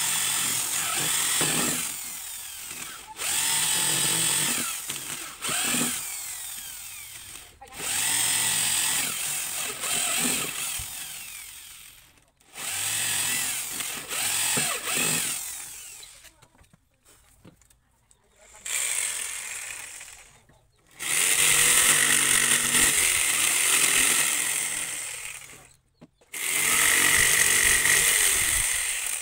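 Corded electric drill boring holes through a thick wooden plank in a series of bursts a few seconds long, its pitch dropping as the bit bites. In the last third an electric jigsaw cuts the plank in two long, steady runs.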